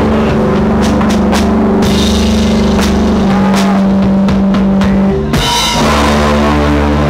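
Rock band playing live: loud distorted guitar chords held over drums and cymbal crashes, with a short break about five seconds in before the band comes back in.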